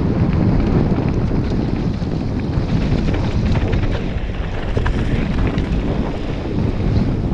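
Wind buffeting the microphone of a helmet-mounted camera on a fast mountain-bike descent, over a steady rumble of tyres on a loose gravel trail. Small clicks and rattles from stones and the bike run through it.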